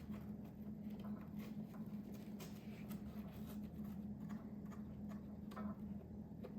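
Faint small taps and ticks of hands working modelling clay and small tools, scattered irregularly over a steady low hum.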